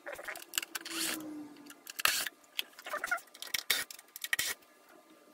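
Irregular clicks, taps and knocks of plastic and metal parts being handled as a circuit board is worked loose from an opened portable speaker, with a few louder knocks and a faint short falling hum early on.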